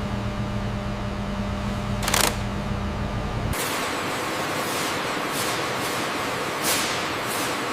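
Food-processing machinery running with a steady low hum, punctuated by short sharp hisses of air; about three and a half seconds in the hum cuts off and a broader hissing noise takes over.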